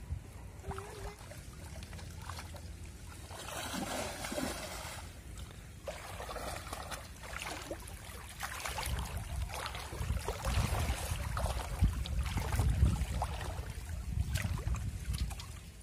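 Shallow water splashing and trickling as people wade through it working polo fish traps, with a low rumble underneath that grows louder in the second half.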